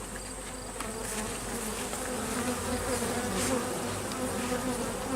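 Honey bees from an opened hive buzzing together in a steady hum, its pitch wavering slightly.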